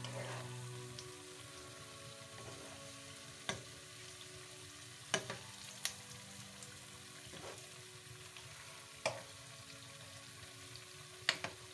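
Gulgule, wheat-flour and jaggery fritters, deep-frying in hot oil in a wok: a steady sizzle, with a few sharp taps of a steel spoon against the pan as they are turned.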